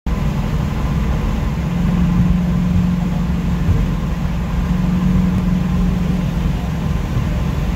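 Blueprint Engines 302 V8 with Hooker headers and a Magnaflow exhaust, cruising steadily at highway speed. It makes a steady low exhaust drone, heard from inside the car's cabin.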